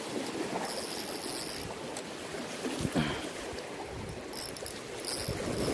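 Choppy lake water rushing and splashing against a rocky shore, a steady wash with a soft knock about three seconds in.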